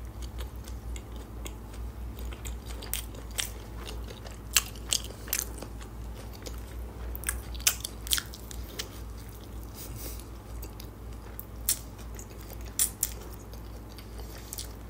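A person chewing a mouthful of fried shrimp burger close to the microphone, with irregular sharp crunchy clicks and smacks, a few of them louder.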